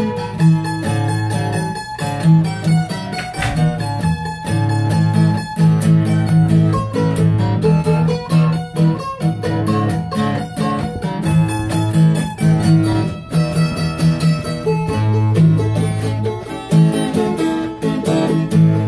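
Acoustic guitar and mandolin playing an instrumental tune together: the guitar keeps a steady rhythm of low bass notes and strums while the mandolin picks quick notes over it.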